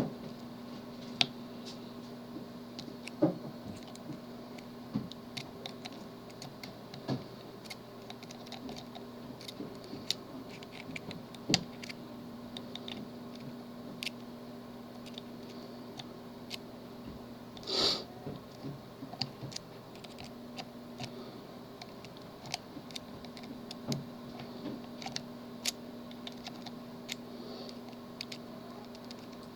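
Tubular lock pick working the pins of a tubular lock: light, irregular metallic clicks and scratches. There is a louder short rustle about 18 seconds in, over a faint steady hum.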